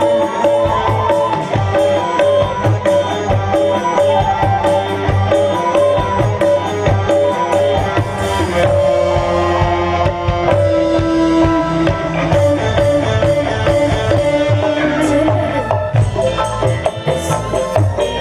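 Live dangdut band playing, with kendang hand drums beating a quick, steady rhythm under a melody line. The melody holds long notes near the middle.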